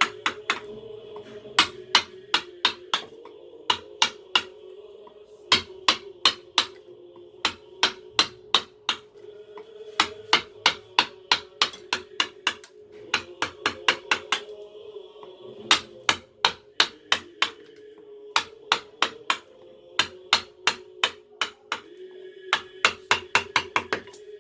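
Carving mallet tapping a chisel or gouge into wood: sharp knocks in quick runs of about three to five a second, with short pauses between runs.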